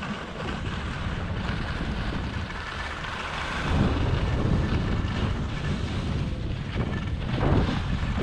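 Wind buffeting a GoPro's microphone as a skier picks up speed, with skis hissing and scraping over groomed snow. The wind rumble grows louder about four seconds in, and there is a brief louder swish near the end.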